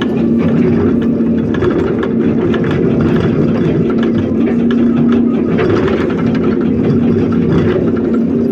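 Heavy diesel engine of quarry machinery running at a steady speed, with a constant low hum and faint rattling.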